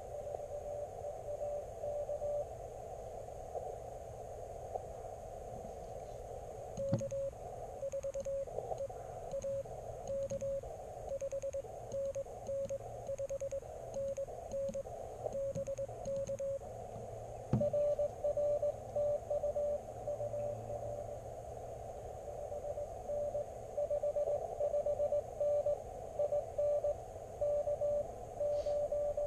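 Elecraft KX3 transceiver sounding Morse code (CW) beeps over a steady hiss of receiver noise. For about ten seconds in the middle the beeps are the operator's own sending on the paddle key, framed by a sharp click at each end; before and after, another station's Morse is being received.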